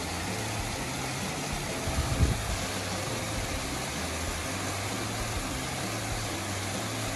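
Steady rushing of a small waterfall spilling over a rock ledge into a pool, with a brief low thump about two seconds in.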